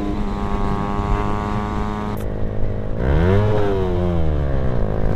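Suzuki Satria FU 150 fuel-injected single-cylinder motorcycle engine running steadily at road speed. About three seconds in, the revs climb sharply and then fall back, after a short click just before.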